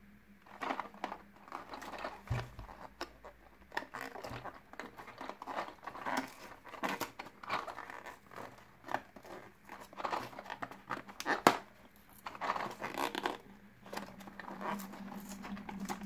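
A small cardboard box of WAGO connectors being picked at and torn open by hand along its tear-off sides: irregular clicks, scratches and crinkling of thin card.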